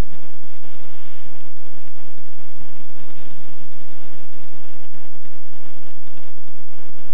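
Steady hiss, strongest in the high treble, with a faint steady hum underneath: the bare noise floor of an old video recording, with no other sound on it.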